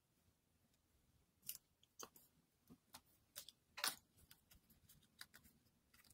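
Faint, scattered clicks and taps of paper-craft supplies being handled on a craft mat: a small card being moved and set down, and an ink pad lifted away. The loudest tap comes about four seconds in.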